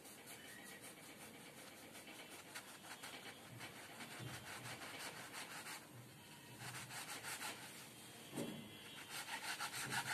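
Kitchen knife sawing back and forth through a soft burger bun on a wooden chopping board: faint, quick repeated rasping strokes with short pauses.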